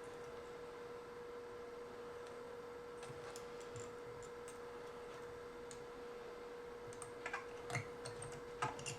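Small clicks and taps of tools and parts being handled during soldering repair work on an electronic circuit, sparse at first and sharper and louder in the last two seconds, over a faint steady hum-like tone.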